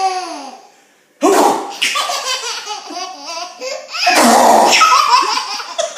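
A young child laughing hard in several bouts. The laughter breaks off briefly about a second in, and there is a louder, breathier outburst about four seconds in.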